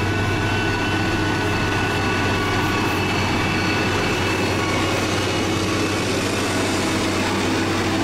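Heavy diesel engine of a SANY motor grader running steadily as the machine spreads gravel with its blade, a constant low hum with no change in pitch.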